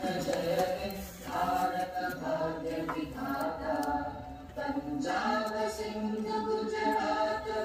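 A group of voices singing together in unison: a slow, chant-like song with long held notes that change step by step.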